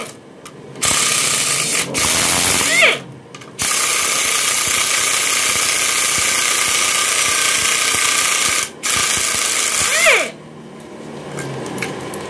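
Pneumatic impact wrench hammering on a bolt of an automatic transmission housing in repeated bursts, the longest about five seconds, with quieter gaps between them. The bolt does not give because the wrench is short of air pressure, which the mechanic says is too low.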